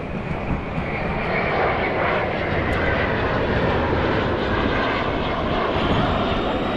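Airplane engine noise from an air show aircraft in flight, a loud steady drone whose pitch sinks slightly over a few seconds.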